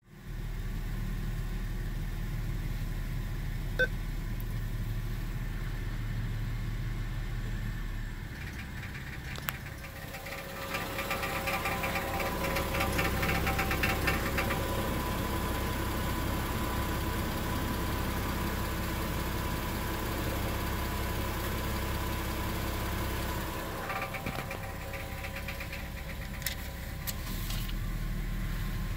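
2002 Subaru Outback L.L.Bean's flat-six engine idling, with a loose exhaust heat shield rattling in fast, fine ticks: the annoying idle rattle of a heat shield working loose. The rattle is loudest through the middle stretch and fainter at the start and near the end.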